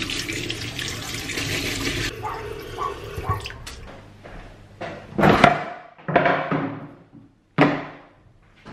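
Tap water running into a sink for about two seconds as a canvas sneaker is scrubbed, stopping abruptly. Then three sharp knocks, the first the loudest, as a kitchen drawer is opened and a wooden cutting board and shoes are set down on a stone countertop.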